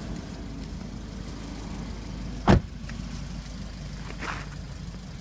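2013 Fiat 500 Sport's four-cylinder engine running with a steady low hum, its intake breathing through a broken airbox. One sharp click comes about halfway through.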